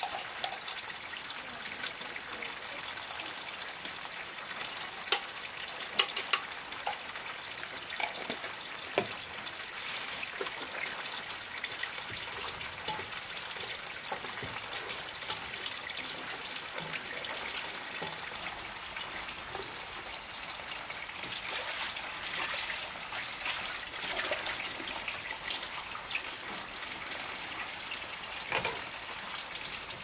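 Steady trickling, running water, with a few sharp knocks about five, six and nine seconds in.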